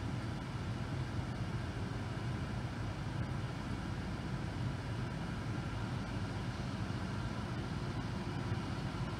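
Steady low hum of a car engine idling, heard from inside the cabin.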